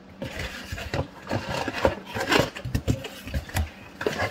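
Cardboard box and packaging being handled: irregular rustling, scraping and knocks as parts are lifted out of the box.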